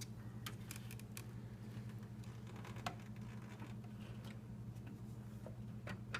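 Faint scattered clicks and light taps of a graphics card being handled and worked into a PC case, over a steady low electrical hum.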